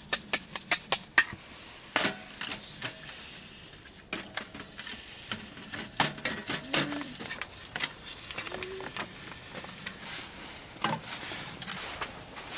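A quick even run of sharp clicks, about five a second, that stops about a second in, followed by scattered knocks and taps.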